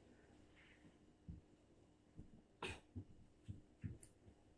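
Near silence with a few faint soft knocks, and a short muffled cough about two and a half seconds in.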